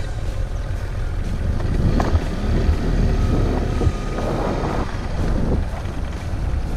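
Motorcycle riding along a dirt road: the engine runs steadily under a low rumble, with wind noise on the microphone.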